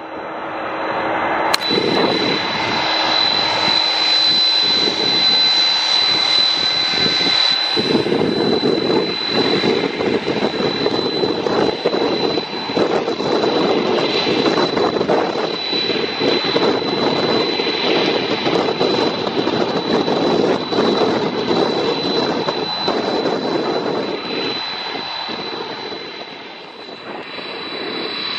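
Twin jet engines of a Boeing 767-300 on final approach to land: a steady jet roar with a high whine held throughout, briefly dipping in loudness shortly before the end.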